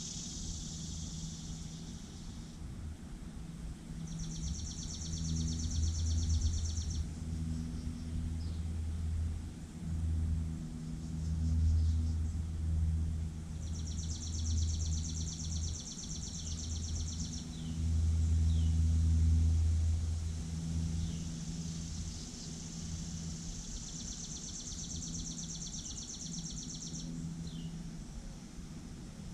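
Backyard ambience: a high, dry, rapid trill comes in three bouts of about three seconds, roughly ten seconds apart, with a few short falling chirps between, over a low rumble that swells and fades.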